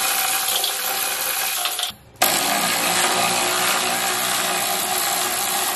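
Cordless power tool running in two long runs, with a short break about two seconds in, as it spins out the 13 mm screws holding the muffler to the chassis.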